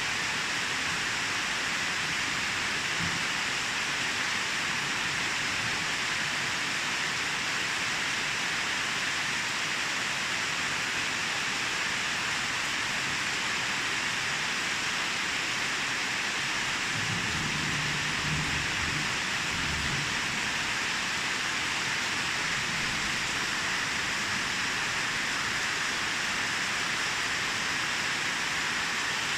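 Steady rain falling, an even hiss, with a faint low rumble a little past the middle.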